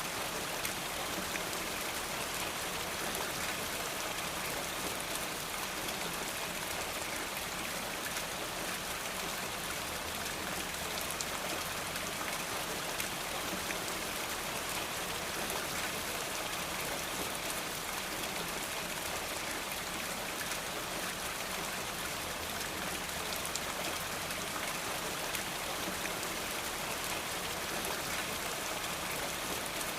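Steady rainfall with raindrops pattering on surfaces, an even hiss of rain.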